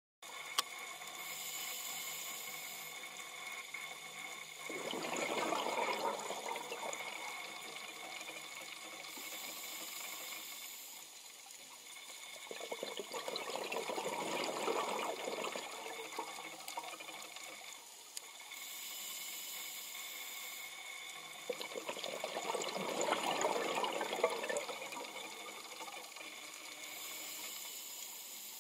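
Scuba diver breathing through a regulator underwater: a short high hiss of inhaling, then a long rush of exhaled bubbles, repeating about every eight to nine seconds with three exhalations.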